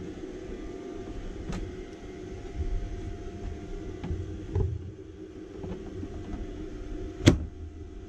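Steady low hum of a portable power station's fan running, easing off a little past the middle, with a few sharp handling clicks, the loudest just before the end.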